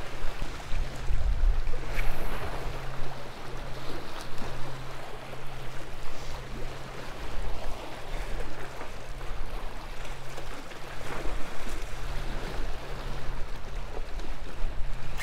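Small waves washing and splashing against jetty rocks, with wind gusting on the microphone. A steady low hum runs underneath.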